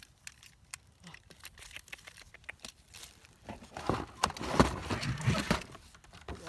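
Rustling and crinkling of a cardboard toy box with a plastic window being handled, with scattered small clicks, growing louder about halfway through as a toy RC rock crawler is pulled out of it.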